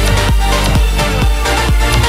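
Electro house music: a dense synth mix over a steady four-on-the-floor kick drum, about two beats a second, with no vocal.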